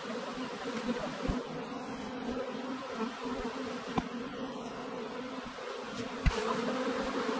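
Honey bee swarm humming steadily, a low buzz with a higher overtone, growing a little louder after about six seconds. A few light knocks sound over it, the sharpest about six seconds in.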